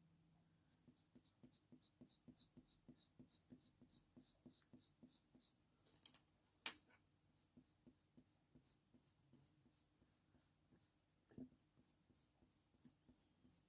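Faint, quick short scratching strokes of a drawing tool on hot-press watercolour paper, about three to four a second, with a few slightly louder clicks partway through.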